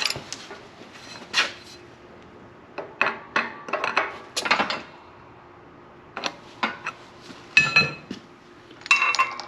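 Loose steel parts (bolt, socket, washer and plate) clinking and knocking together as they are taken out of a manual hydraulic press: a series of short irregular metallic clinks, a few near the end ringing briefly.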